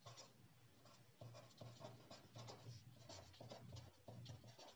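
Faint scratching of a pen writing on paper, a run of short quick strokes starting about a second in.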